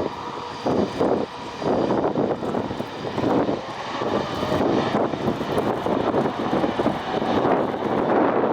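A Boeing 777's jet engines running loud, a steady rushing noise that swells and dips, with a faint whine on top.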